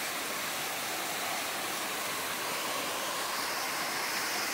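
Steady rush of a mountain creek cascading over rock and pouring down a small waterfall.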